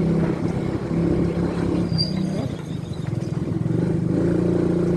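Motor vehicle engine running steadily while driving, easing off briefly around the middle.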